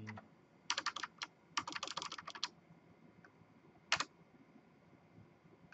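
Typing on a computer keyboard: a quick run of keystrokes about a second in, a longer run around two seconds in, then a single key press at about four seconds.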